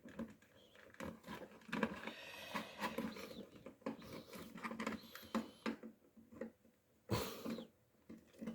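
Faint scattered plastic clicks, scrapes and rustling from an LED headband magnifier being handled and adjusted, with a louder rustle about seven seconds in.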